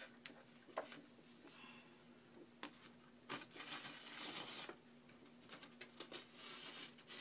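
Quiet handling of paper pages and needle and thread during hand book stitching: a few small taps and clicks, and a longer soft swish about three and a half seconds in, over a faint steady hum.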